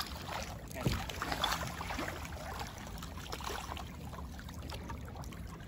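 River water lapping and swishing over a steady low rumble, with a few faint clicks, the clearest about a second in.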